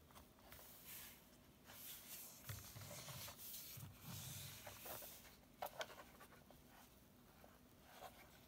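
Faint rubbing and handling noise of fingers on the plastic body of a Canon Prima BF-800 compact film camera as it is turned in the hands, with two small clicks about five and a half seconds in.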